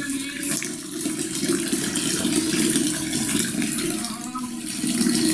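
Water from a wall tap pouring steadily into a plastic basin already partly filled with soapy water, filling it as a disinfectant foot bath.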